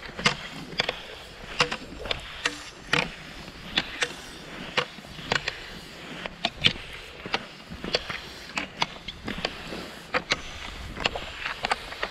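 Cross-country skiing on thin, uneven snow: the skis hiss and scrape as they glide, and the pole tips strike with sharp clicks, irregular, roughly one to two a second.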